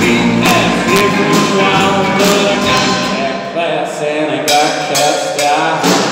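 Live rockabilly band playing, with guitars, drums, upright bass and a harmonica line over the top. The deep bass drops out for the last couple of seconds while the rest keeps going.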